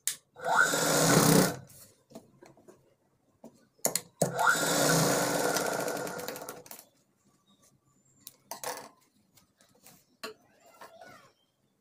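Electric sewing machine running in two bursts, a short one and then a longer one, each opening with a rising whine as the motor spins up, stitching two pieces of cloth together. A few soft clicks follow near the end.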